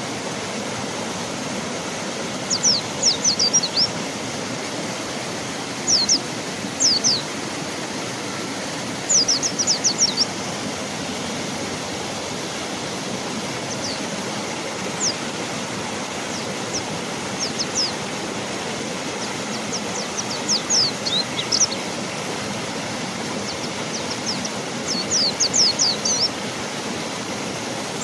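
Steady rush of a flowing river, with a mountain white-eye calling over it in repeated short bursts of rapid, high, downward-slurred chirps.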